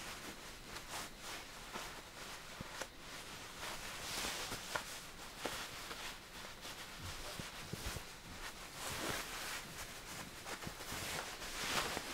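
Necktie and shirt fabric rustling as the tie is knotted: soft swishes of cloth sliding over cloth, with the loudest pulls around the middle and near the end, and a few small clicks.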